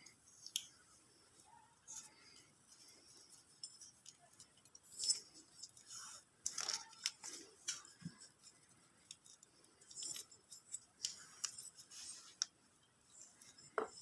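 Insulation tape being wrapped around a motorcycle wiring connector: brief rasps of tape pulled off the roll at irregular moments, among light clicks and handling noises.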